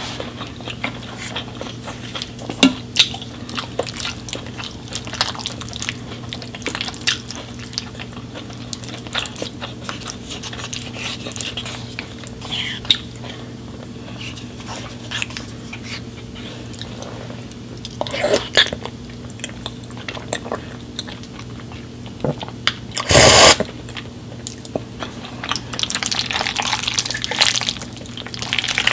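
Food-preparation sounds: scattered small clicks and taps over a steady low hum, a loud short rush of noise about two-thirds of the way through, and a steady hiss of water or sizzling near the end.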